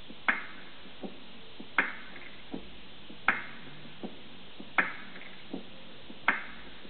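Sparse, evenly paced beat from an instrumental backing track: a sharp click about every one and a half seconds, with a softer knock halfway between each pair.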